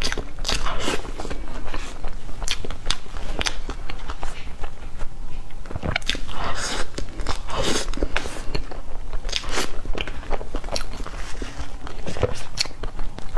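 Close-miked eating of soft cream cake: wet chewing and mouth sounds, with many short sharp clicks and smacks.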